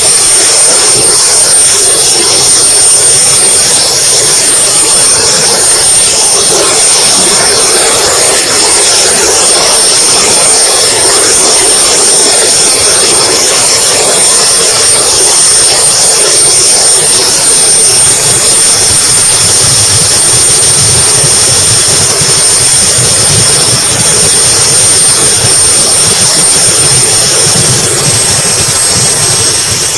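Model-jet turbine engine running in flight with a steady high-pitched whine, heard from a camera on the airframe under heavy wind rush. The whine's pitch dips slightly about four seconds in and again near the end.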